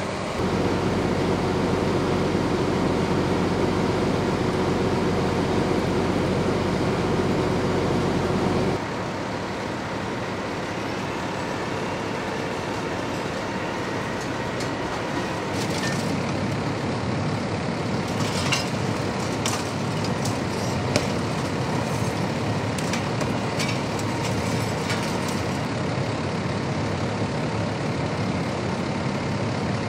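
Vehicle engine idling with a steady low hum. About nine seconds in it cuts off abruptly, giving way to a steady rumble of engines with scattered clicks and knocks partway through.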